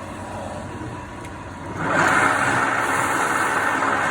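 A motor starts up about two seconds in and runs on steadily and loudly, with a hissing whir over a low hum.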